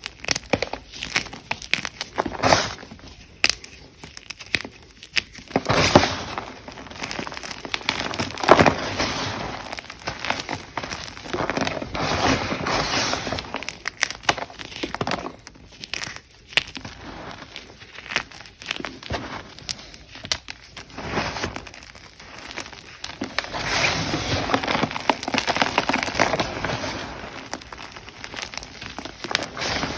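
Ader gym chalk being crushed and crumbled, a dense crunchy crackling with louder crunches now and then.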